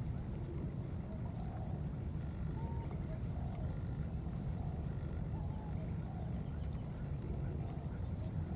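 Outdoor undergrowth ambience: a steady high insect drone with a fast pulse over a low rumble of wind or handling on the microphone. Faint short calls recur about once a second.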